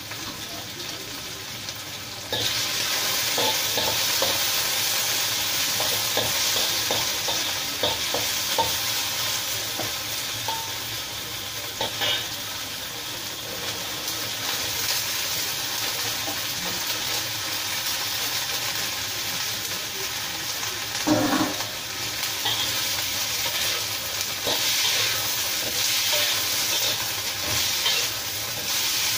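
Stir-frying in a wok: food sizzling in hot oil while a spatula scrapes and tosses it, with scattered knocks of the spatula on the wok. The sizzle gets louder a couple of seconds in, and there is one louder clatter about two-thirds of the way through.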